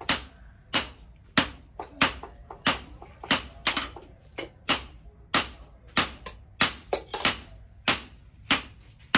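Hammer striking metal in a steady rhythm, a little over one blow a second, each blow ringing briefly, with lighter rebound taps between some of them, typical of a blacksmith's hammer working steel on an anvil.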